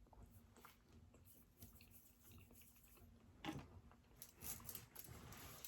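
Faint close-up chewing: mouth and food noises of someone eating, with a louder smack about three and a half seconds in.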